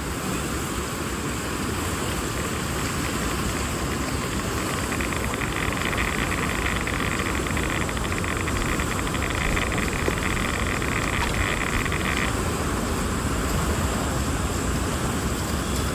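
Creek water rushing steadily around a person wading through it. A higher rasping sound joins in from about five seconds in and stops sharply near twelve seconds.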